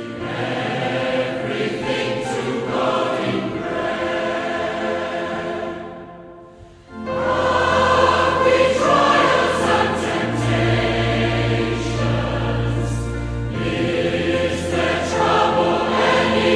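A hymn sung by a choir with accompaniment. It fades to a short lull about six seconds in, then comes back fuller, with a deep bass.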